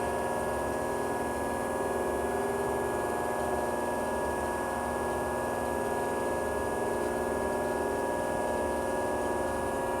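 Hydraulic power unit of a Diacro CNC bender running steadily: an electric motor and pump giving a constant hum with several steady tones.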